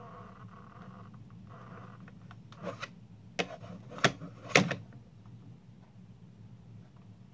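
Kids Logic 1/20 DeLorean model knocking against its magnetic levitation base as it is held in place and fails to float: four sharp clacks between about two and a half and five seconds in, the last the loudest. A low steady hum runs underneath, and a buzzing tone stops and starts in the first two seconds.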